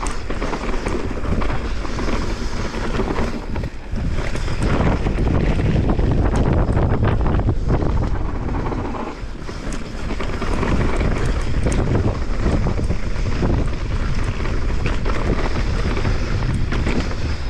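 Wind buffeting the camera microphone over the rumble of a 2023 Santa Cruz Megatower mountain bike's tyres on a dry, rocky dirt trail at speed, with frequent sharp rattles and knocks from the bike over the rough ground.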